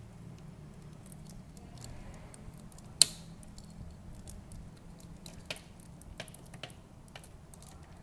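Hard plastic clicks and taps as parts of a Super Robot Chogokin Genesic Gaogaigar action figure are handled and fitted into place: one sharp click about three seconds in, then a few lighter clicks.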